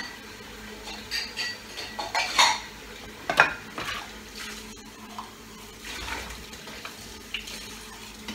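Kitchen dishes and utensils clinking and clattering as they are handled and set down on a worktop: a string of separate knocks and clinks, a few of them ringing briefly, the loudest about two and a half and three and a half seconds in.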